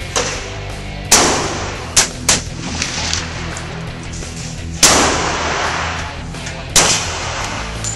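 Firearm shots, about six or seven at uneven intervals, the loudest about a second in, near five seconds and near seven seconds, each trailing off in a short ringing echo. Music plays underneath throughout.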